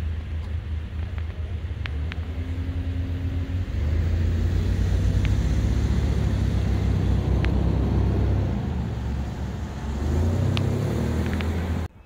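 Steady low rumble of a vehicle in motion, growing louder about four seconds in, with a brief hum near three seconds; it cuts off abruptly just before the end.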